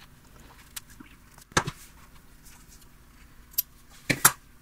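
Scissors snipping the ends of linen sewing thread: two sharp snips, about a second and a half in and about four seconds in, between quiet handling of the thread and paper.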